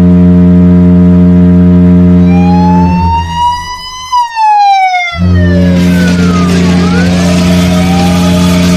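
Ice hockey arena goal horn sounding a deep, loud blast, broken off by a siren that rises and then falls in pitch, then blasting again as the goal song starts up underneath.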